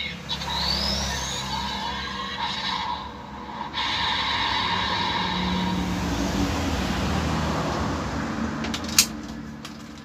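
DX Desire Driver toy belt, fitted with the Claw and Boost Raise Buckles, playing its electronic transformation sound effects through its small speaker. A sharp click comes near the end as a hand takes hold of the toy.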